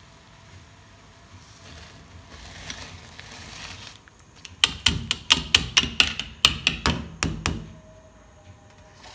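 A pot of water at a rolling boil hisses steadily as soaked rice is tipped in from a metal strainer. About halfway through, the strainer is rapped against the rim of the aluminium pot some fifteen times in three seconds, sharp metallic knocks to shake the last grains loose.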